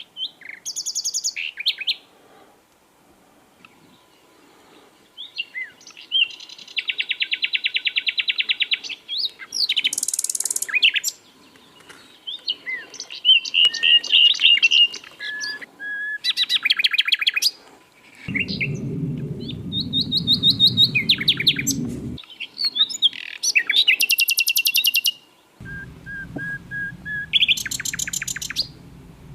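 Sikatan londo flycatcher singing a varied, busy song of fast rattling trills, runs of repeated high notes and short whistled slurs, with short pauses between phrases. A low background rumble comes in twice in the second half.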